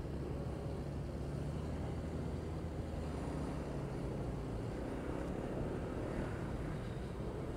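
Motorbike engine running steadily at low road speed in slow town traffic, an even low hum that holds without revving.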